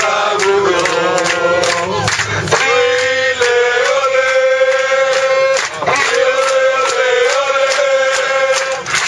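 A planeload of men singing a football chant in unison, loud and sustained, with steady rhythmic hand-clapping in time, in the closed cabin of an airliner.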